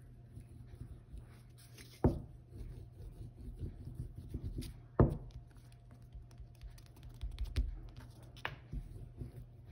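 Fingertips rubbing and pressing a new adhesive spot down onto the pool table cloth, a faint scratching. Two sharp knocks come about two and five seconds in, and a lighter one near the end.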